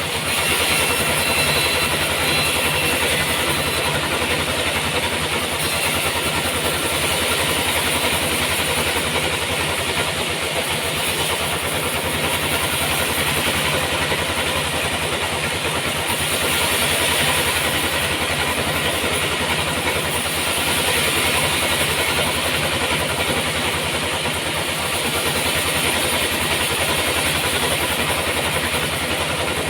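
Sawmill machinery running steadily, with an even motor hum under a hissing noise that swells and eases every few seconds.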